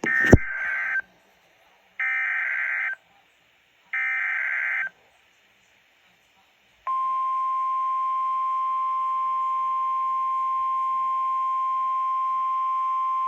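NOAA Weather Radio alert opening: three one-second bursts of SAME header data tones about two seconds apart, with a sharp click just after the first one starts. About seven seconds in comes the steady single-pitch 1050 Hz warning alarm tone, which holds. This header and tone open a National Weather Service tornado warning.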